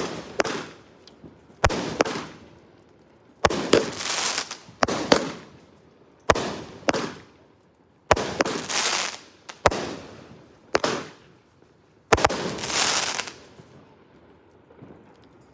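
Red Apple Europa 200-gram 12-shot firework cake firing shot after shot, one every one and a half to two seconds. Each shot is a sharp bang followed by a hiss that fades over about a second. The last shot comes about twelve seconds in.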